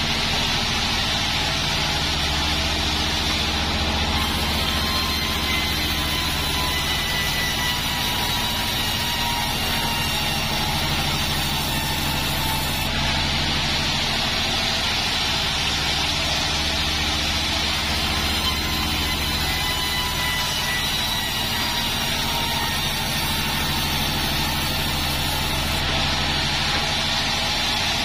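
Band sawmill running steadily while sawing joar wood into beams: a constant, unbroken machine drone.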